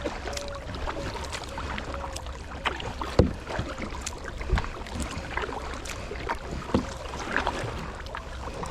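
Kayak being paddled: irregular splashes of the paddle blades and knocks of the paddle against the hull, the sharpest about three seconds in, over a steady low rumble.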